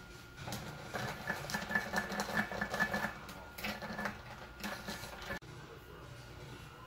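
Instant coffee being beaten in a metal bowl: fast, rhythmic clicking and scraping at about four or five strokes a second, which stops abruptly a little over five seconds in.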